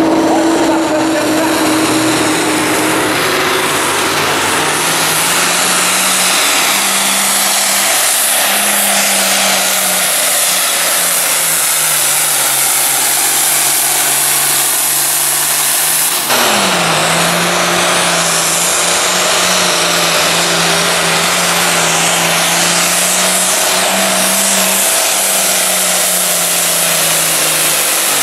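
Turbocharged International Harvester diesel pulling tractor running flat out under heavy load as it drags a weight-transfer sled, the engine note sagging and rising as it pulls. About halfway through the sound breaks off abruptly and picks up again with the engine pitch falling.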